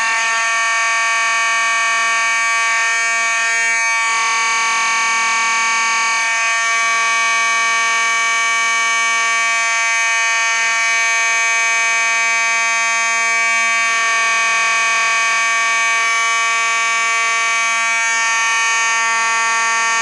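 Simplex fire alarm horn sounding in alarm, set off by a manual pull station: one loud, steady buzzy tone held without a break.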